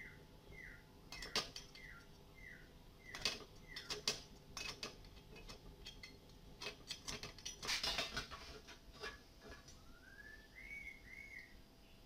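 Steel scriber scratching and clicking on a ribbed steel bar as it is marked along a metal ruler: a run of short falling squeaks about twice a second for the first three seconds, then scattered sharp metal clicks and scrapes. Near the end come two brief rising chirps.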